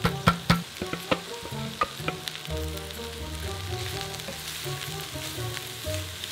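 Riced cauliflower sizzling as it hits a hot pan and is stirred with a wooden spatula, with several sharp knocks in the first second or so as the plastic food processor bowl is tapped against the pan to empty it.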